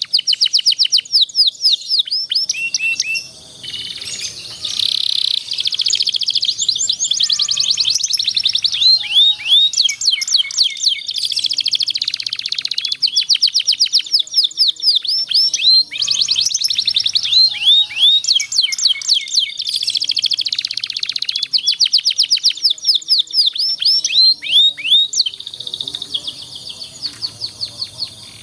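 Domestic canary song of long rolling trills and fast repeated chirps, phrase after phrase with only short breaks: a masteran, a tutor song for young canaries learning to sing.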